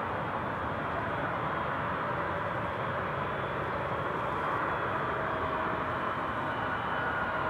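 Airbus A321neo jet engines running steadily: an even rushing noise with a faint high whine that grows near the end.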